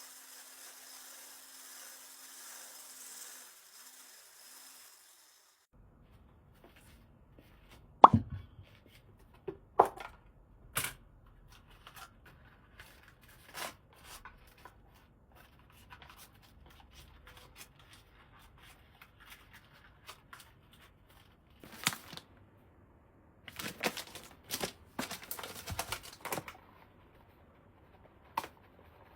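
A steady hiss with a low hum for the first few seconds, then scattered knocks, clicks and taps of objects being handled, the loudest a sharp knock about eight seconds in.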